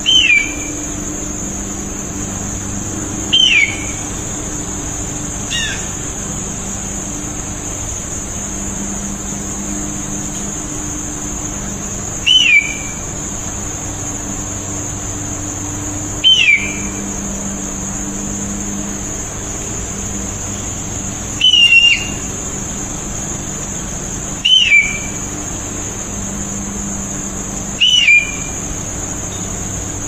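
A hawk screaming: about eight short, down-slurred cries, each falling in pitch, spaced a few seconds apart. Beneath them run a steady high-pitched hiss and a low hum.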